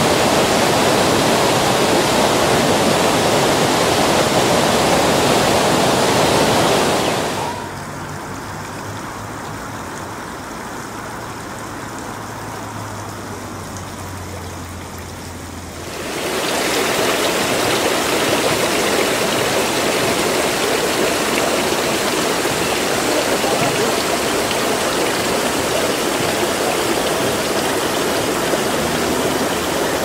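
Steady rush of running water. About seven seconds in it gives way to a quieter stretch with a low hum, then returns about eight seconds later.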